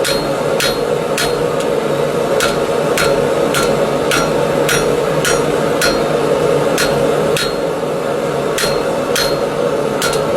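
A heavy blacksmith's hammer striking on an anvil in a steady rhythm, about 18 blows, a little under two a second, each with a short ring. A steady hum runs underneath.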